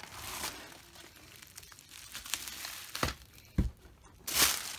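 Bubble wrap crinkling and rustling as a bubble-wrapped box is pulled out of a cardboard mailer and handled, with a sharp knock about three seconds in, a dull thud just after, and a loud crinkle near the end.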